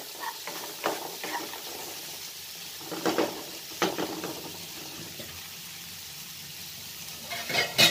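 Tomatoes and spiced masala sizzling in a non-stick pan while a spatula stirs them, with a few short scraping strokes against the pan.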